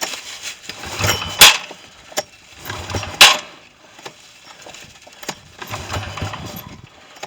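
Small vehicle engine being cranked again and again after stalling, turning over in three short tries without catching. Two loud sharp clacks come about a second and a half and about three seconds in.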